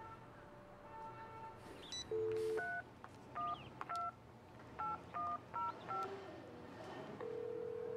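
Telephone keypad tones as a number is dialled by hand: a brief dial tone about two seconds in, then about seven short two-note touch-tone beeps at an uneven pace, followed near the end by a long steady tone on the line.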